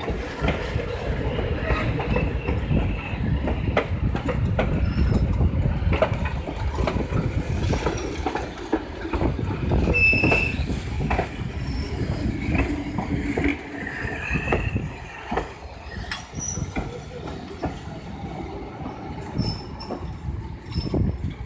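Vintage passenger train of the Prairie Dog Central heritage railway rolling along the track: a steady rumble with irregular clacks of wheels over rail joints and a few brief high wheel squeals.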